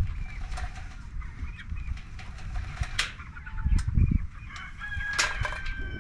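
Meat chickens clucking and calling as they are herded along, with short calls and a longer held call near the end, over a low rumble.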